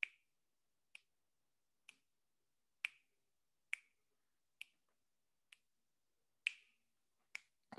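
A steady series of sharp clicks, nine of them, about one a second, with silence between.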